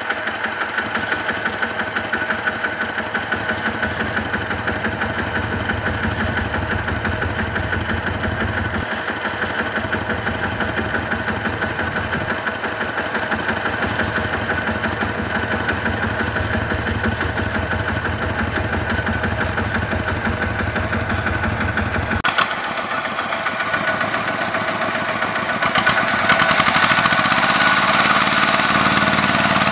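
Kubota RT140 two-wheel tractor's single-cylinder diesel running with a steady, even beat of firing pulses. About 26 s in it gets louder and rises in pitch as it strains to pull the loaded rice trailer out of a rut in the dirt track.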